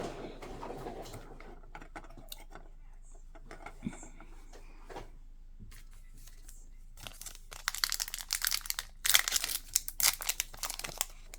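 Foil trading card pack wrapper being handled, with a few light clicks, then crinkling and rustling for the last few seconds.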